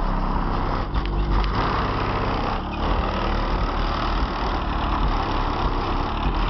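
Loud, deep bass pounding from a Buick Regal's trunk subwoofer system, a heavy low rumble with shifting bass notes.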